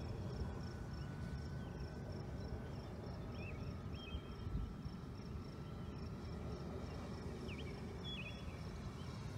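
Faint steady whine of a distant electric RC plane's motor, an E-flite Cirrus SR22T on a 3S battery, dropping slightly in pitch a few seconds in as the throttle eases. Underneath it an insect chirps in fast even pulses, and a bird gives a few short chirps.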